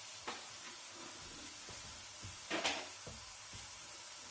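Ground pork and beef frying in a skillet, a low steady sizzle, with a few light knocks and one louder rustle or clatter about two and a half seconds in.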